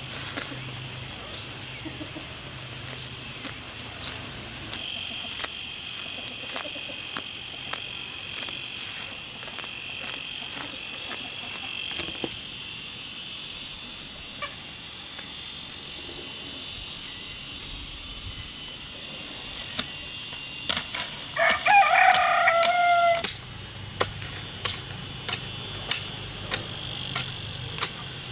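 A rooster crows once, a long call of about two and a half seconds starting about 21 seconds in, over a steady high insect buzz. Sharp clicks or knocks recur throughout, falling into an even beat near the end.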